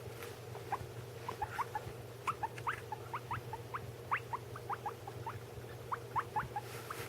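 Guinea pig squeaking: a quick run of short, rising squeaks, several a second, over a steady low hum.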